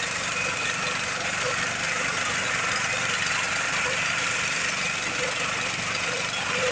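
Walk-behind reaper's small engine running steadily under load as the machine cuts standing wheat.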